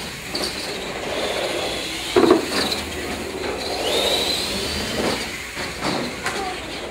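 Radio-controlled monster trucks racing, their electric motors whining and gliding up and down in pitch with the throttle. A sharp knock about two seconds in, the loudest moment, with a few lighter knocks later, as trucks hit ramps and land.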